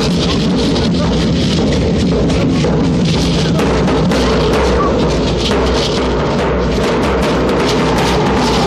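Large double-headed bass drum beaten with a padded mallet, together with a smaller drum, keeping up a steady, loud dance rhythm.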